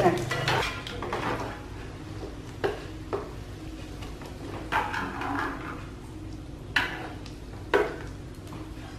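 A wooden spatula and chopsticks clacking a few times against a non-stick frying pan as pieces of fried egg are lifted out. Under this, hot frying oil sizzles faintly.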